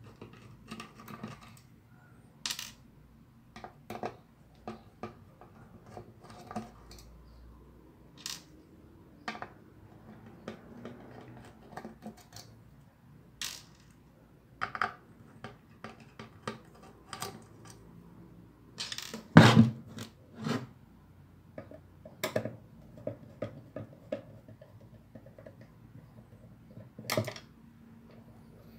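Scattered clicks, taps and small metallic clinks of a screwdriver working the screws out of an M-Audio M-Track Plus audio interface's case, with the loose screws set down on the desk. The loudest knocks come about two-thirds of the way through and near the end.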